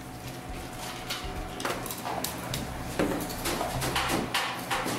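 Kitchen items being handled on a plastic cutting board: repeated knocks and clatter of bottles, a can and a cardboard box, starting about two seconds in, over a low steady hum.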